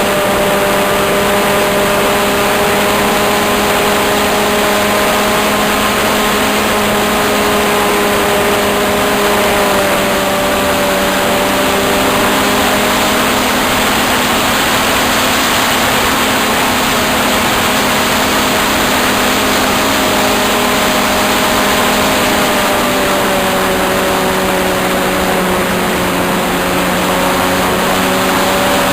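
RC model airplane engine running steadily at a high, even drone, its pitch drifting slightly now and then, under a constant rush of air noise.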